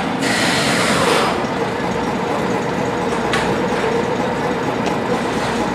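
An engine idling steadily, with a burst of hiss starting a moment in and lasting about a second.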